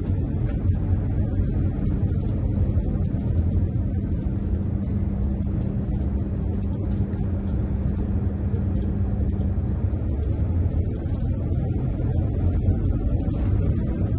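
Motorhome driving slowly on a town street: a steady low rumble of engine and road noise, with a low hum that stops about ten seconds in.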